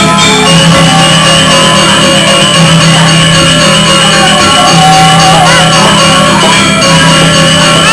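Balinese gamelan ensemble playing loud dance music: dense, ringing metallophone tones over a steady low tone.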